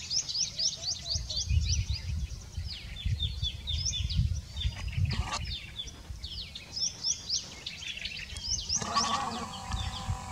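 Small songbirds chirping in quick runs of short, high, down-slurred notes, with a low uneven rumble underneath. A longer, lower animal call, like a bleat, starts about nine seconds in.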